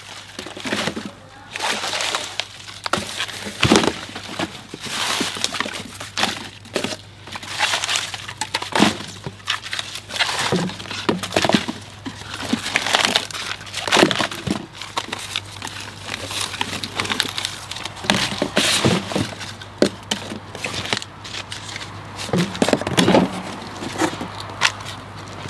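Tough, papery bamboo-shoot sheaths being torn off and handled, making irregular crackling and tearing sounds with sharp snaps.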